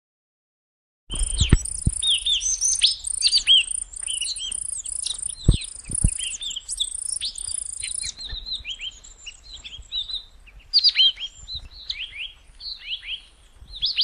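Many small songbirds chirping over one another in a dense chorus of short, high, quickly sliding chirps, starting about a second in. A few soft low knocks sound under the chirping.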